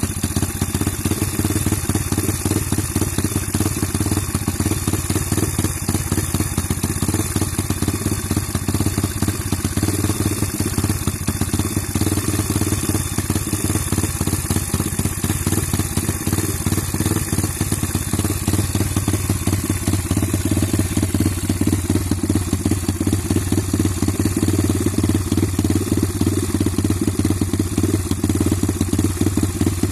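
Stomp 140 pit bike's single-cylinder four-stroke engine idling steadily.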